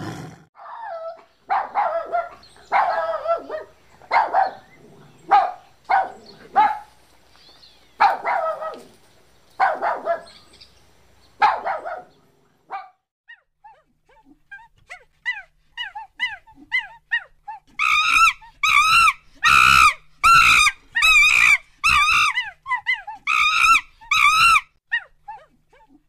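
A run of animal calls: short yelping barks, several in quick succession, for about the first twelve seconds, then faint short chirps, then a series of loud quavering, warbling calls in the last third.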